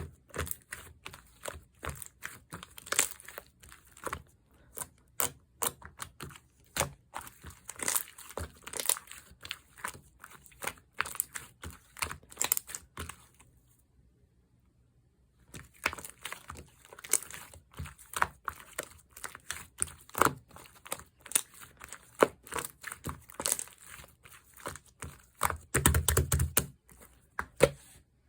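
Slime being squished, pressed and stretched by hand, giving irregular sticky crackles, pops and clicks. It stops for a second or two about halfway through, and the crackling gets denser and heavier near the end.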